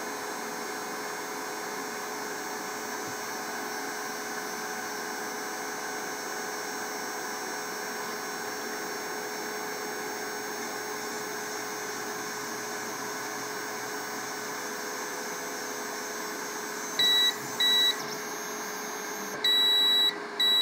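Elegoo Mars LCD resin 3D printer running at the start of a print: a steady hum and whine from its fan and the Z-axis stepper motor as the build platform lowers into the resin vat. Near the end come four short electronic beeps, two close together and then a longer one and a short one.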